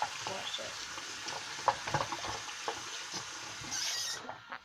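Tap water running into a sink half full of soapy water while a plastic toy horse is swished and scrubbed in it, with small splashes. The running water cuts off abruptly near the end.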